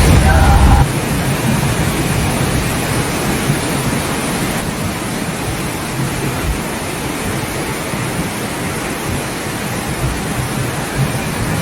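Steady, even rush of water noise with no breaks. A louder stretch with a voice ends just under a second in.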